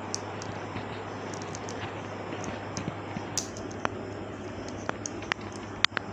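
Scattered light clicks and taps from handling small hard parts, over a steady hiss and a low hum, with one sharper click near the end.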